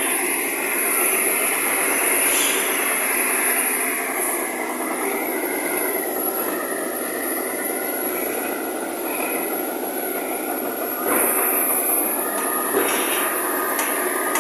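JCB telehandler with a loader bucket at work: a steady engine-and-machinery noise that grows louder in the last few seconds, with a few sharp knocks near the end.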